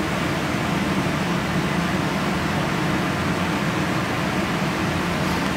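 Kitchen range hood extractor fan running with a steady hum.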